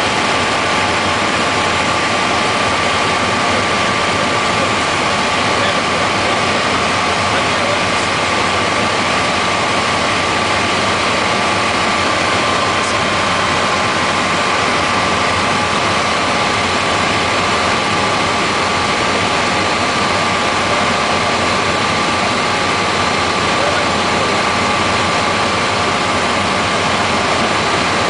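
Bell 427 helicopter in flight, heard inside the cabin: its twin turboshaft engines and rotor system give a loud, steady rush with a constant high whine running through it.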